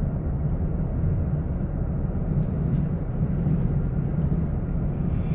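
Steady road and engine rumble inside the cabin of a truck driving along.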